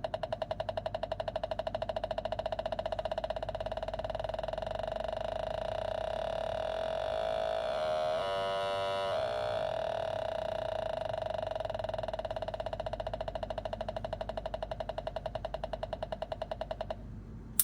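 Electronic sound device giving a rapidly pulsing, buzzy tone. About seven seconds in, its pitch is shifted in steps for a couple of seconds before it settles back, and it cuts off near the end.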